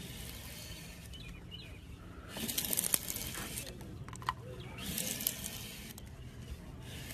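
A long flat blade shaving thin curls off a wooden block: two hissing strokes, each lasting about a second, the first about two and a half seconds in and the second about five seconds in.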